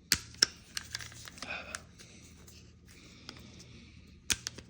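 Handling noise from a Ruger Security-9 Compact pistol being worked apart: two sharp metal clicks just after the start, rubbing and scraping of parts in between, and another quick cluster of clicks near the end.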